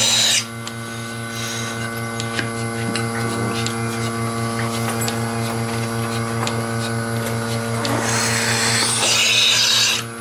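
Surge bucket milker running with a steady machine hum, as its teat cups are put on a Jersey cow. Air hisses loudly into the open teat cups briefly at the start and again for about two seconds near the end. Each hiss cuts off suddenly as a cup is slipped onto a teat and seals.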